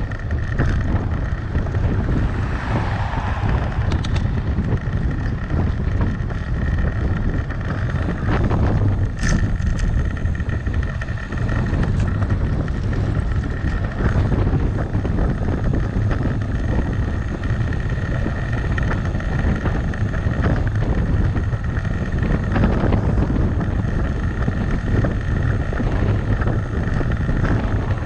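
Wind rushing over a bicycle-mounted action camera's microphone while riding, a steady rumbling rush mixed with road noise. A brief sharp click comes about nine seconds in.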